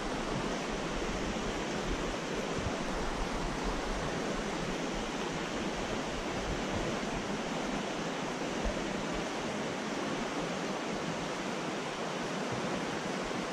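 Creek water rushing steadily over riffles and small rapids.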